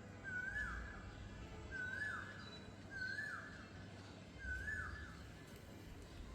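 A bird repeating the same short call four times, about every second and a half, each a brief steady note that drops away at the end, over a low steady rumble.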